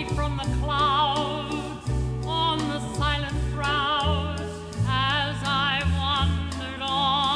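A woman singing a slow song in a full voice with a wide vibrato, over sustained low notes from her instrumental accompaniment.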